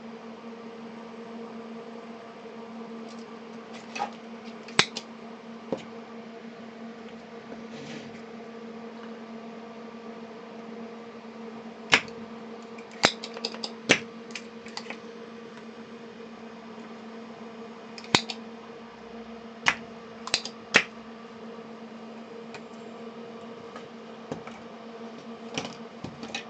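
Sharp clicks and snaps of tools at irregular intervals, over a steady electrical hum, while diodes are desoldered and pulled from a power supply circuit board.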